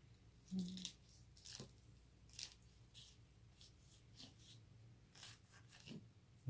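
Kitchen knife slicing a red sea bream fillet away from the rib bones on a plastic cutting board: about six short, faint scratchy strokes as the blade scrapes over the bones.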